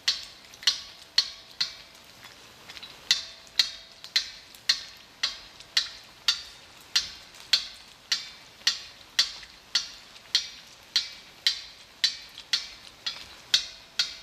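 Background music reduced to a sparse percussive beat: sharp, ringing ticks about two a second, with a short break about two seconds in.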